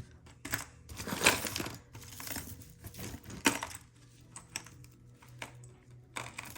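Costume jewelry and beads being handled by hand, clicking and rattling against each other in irregular bursts. The sharpest clicks come about a second in and about three and a half seconds in.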